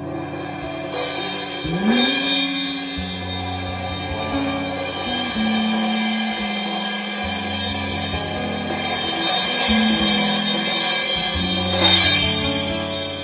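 Live instrumental trio playing a slow tune: nylon-string guitar and electric guitar over held low notes, with cymbal played with sticks. There is a loud cymbal crash near the end.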